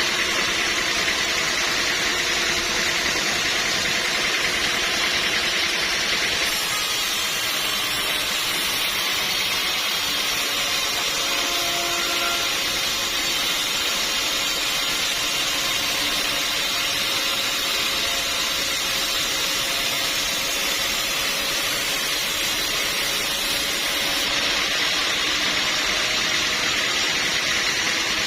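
Sawmill machinery running steadily. About six seconds in it turns brighter and hissier, and about four seconds before the end it drops back to a plainer running sound.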